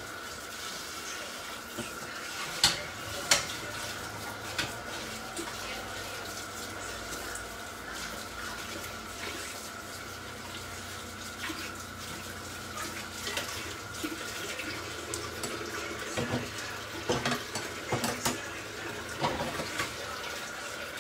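Kitchen tap running steadily, with two sharp clicks about three seconds in and a cluster of dishes and utensils knocking near the end.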